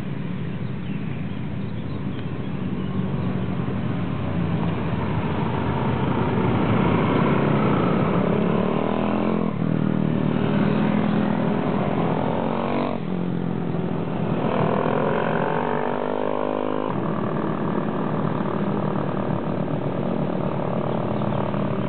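Several Honda Dax and Monkey mini bikes with small single-cylinder four-stroke engines riding past one after another, getting louder as they approach. Their engine notes change as each passes, and one climbs in pitch as it accelerates out of the bend about two-thirds of the way through.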